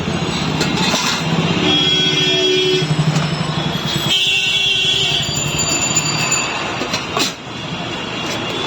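Busy city street noise: traffic and the bustle of people, with a few held tones among it.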